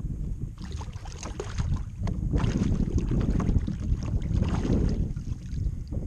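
Water splashing and sloshing at the side of a kayak as a redfish is let go over the side, with wind buffeting the microphone. It is busiest and loudest in the middle of the stretch.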